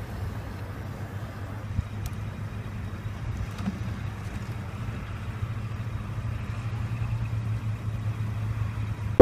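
A car driving, with a steady low engine hum.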